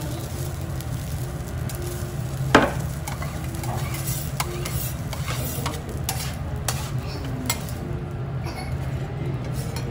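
Steel spatulas scraping and tapping on a teppanyaki griddle as fried rice is gathered up, over a light sizzle and a steady low hum. One sharp metal clang comes about two and a half seconds in, then a run of quicker taps and scrapes.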